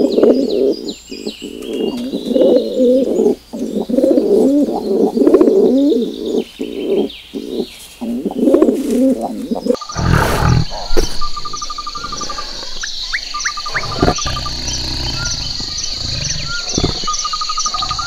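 Flock of feral pigeons cooing, a dense overlapping warble, with small birds chirping above. About ten seconds in it changes to birds trilling, a steady high-pitched ringing tone and a few low thuds.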